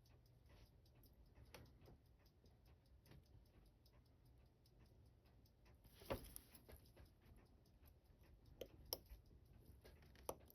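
Near silence with faint, evenly spaced ticking and a few sharper light clicks about six and nine seconds in, typical of tweezers and small steel watch parts being handled at a watchmaker's bench.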